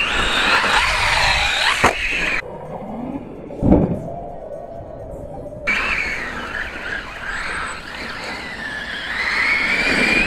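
Brushless motor of a VKAR Racing Bison V2 RC truggy (3670 motor, 120 A ESC) on a 4S LiPo, whining and rising and falling in pitch as the throttle is worked. The whine drops away for about three seconds in the middle, with a single thump about four seconds in.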